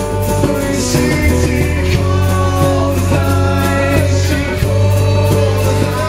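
Live band playing a song on acoustic guitars, with a man singing the melody into a microphone over a steady beat.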